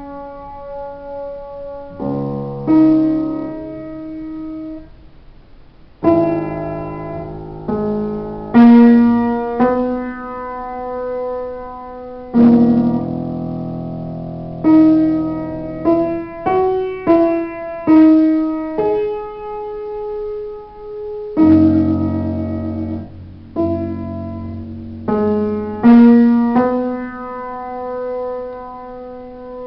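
Solo upright piano playing a melody over chords, its notes struck and left to ring and fade.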